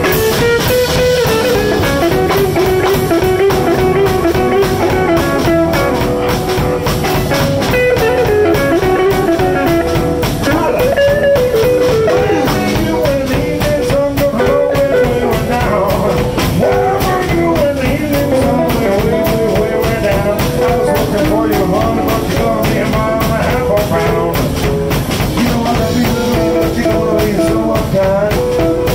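Live blues band playing an instrumental passage: guitar and drum kit under a lead line that bends up and down in pitch, with a steady beat.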